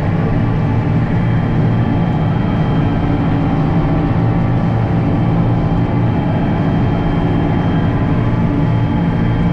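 International Harvester 1586 tractor's six-cylinder turbo diesel engine running steadily at a constant speed.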